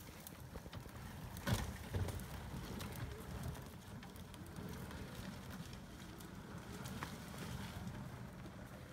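HDT Hunter WOLF unmanned ground vehicle running as it drives up a steep brushy slope, a low steady rumble with crackling from the ground and brush. Two sharp knocks about one and a half and two seconds in.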